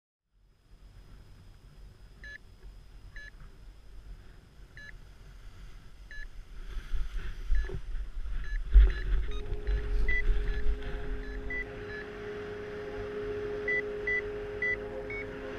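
Wind buffeting the action camera's microphone as a paraglider launches and climbs, a low rumble that grows stronger about halfway through. Over it, a paragliding variometer beeps in short high pips, slow at first and then quicker, the sign of the glider going up in lift. From about nine seconds in, a few steady held tones join in.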